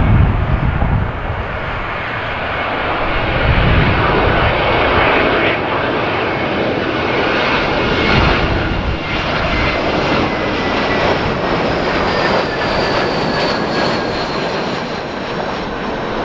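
Airbus A320-214's CFM56 jet engines passing low overhead on approach. A steady jet roar carries whining tones that slowly fall in pitch as the aircraft goes away. Gusts of wind buffet the microphone near the start and again about four seconds in.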